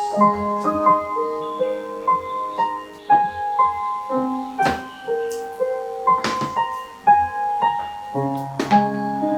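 Background piano music: a slow melody of held notes over chords, with a short knock about every second and a half.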